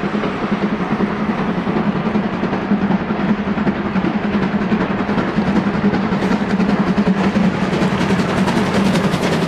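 Steam locomotive working a train past: a rapid, drum-roll-like run of exhaust chuffs over a steady low rumble, with sharp clicks of wheels over rail joints getting stronger in the last few seconds.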